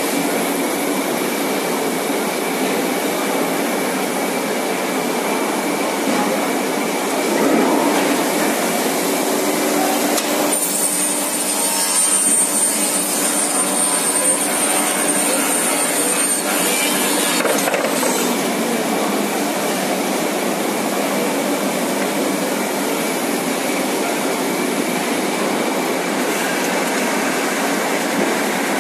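Steady machinery noise from an automatic plywood veneer assembly line: conveyor and cutter motors running. A high steady whine joins in for about six seconds in the middle.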